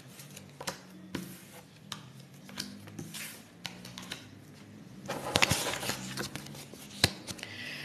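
Baralho cigano cards being turned over and laid out on a tabletop: scattered light taps and slides of card on card, with a longer rustle about five seconds in and a sharp tap near the end.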